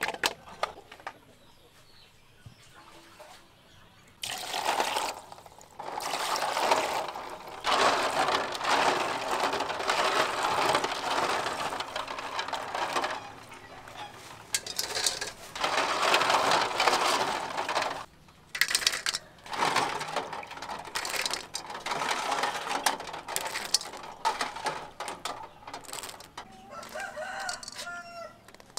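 Raw quail eggs being washed by hand in a metal basin of water: splashing and the clatter of the small shells against each other, in bursts a few seconds long after a quiet start. Near the end a rooster crows once.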